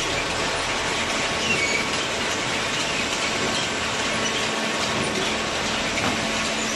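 Cardboard compactor baler running: a steady mechanical noise with a faint hum and a few brief high-pitched metallic squeaks.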